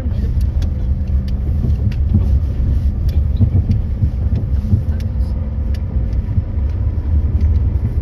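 Car driving along a road, heard from inside: a steady low engine and road rumble, with scattered light clicks.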